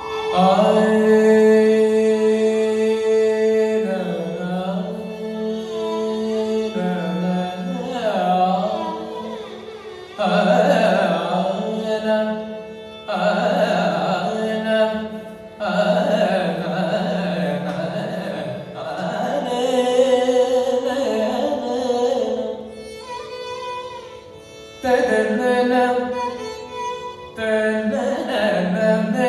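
Male Carnatic vocalist singing long, gliding phrases in raga Mohana, with a violin accompanying.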